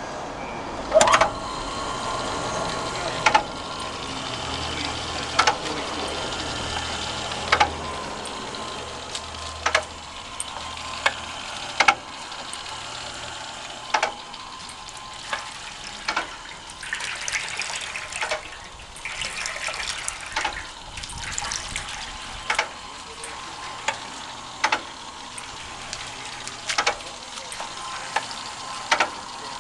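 Tokai Kikai NEW HOPE MT-50 mortar pump running on water: a sharp knock about every two seconds over a steady hiss and splash of pumped water, with a spell of louder water noise around the middle.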